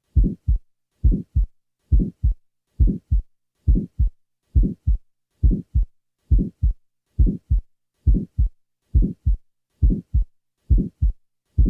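Heart sounds of a small muscular ventricular septal defect: a steady beat of about 70 a minute, each beat a pair of low thuds, with an early systolic murmur that begins with the first sound and stops in mid-systole.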